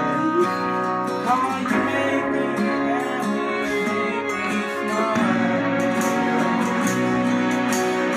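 Song intro: guitar-led music with sustained notes and a steady beat.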